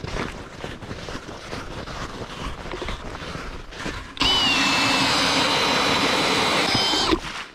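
A power ice auger drilling through the ice: it starts suddenly about four seconds in with a steady, loud whining run of about three seconds and cuts off abruptly. Before it, quieter shuffling and knocks of movement on the ice.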